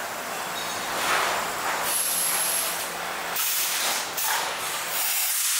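Plastic thermoforming machine running, with compressed air hissing in several separate surges over a few seconds as the pneumatics fire and vent.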